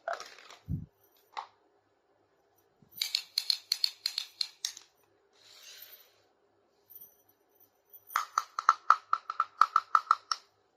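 Small plastic toy kitchen pieces being handled: a quick cluster of light clicks and taps, a brief soft scrape, then, near the end, a fast run of ringing taps at about five a second.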